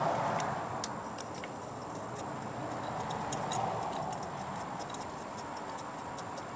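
Scattered light clicks and taps as a thermostat housing is handled and pressed into place on the engine by hand, over a steady background hum.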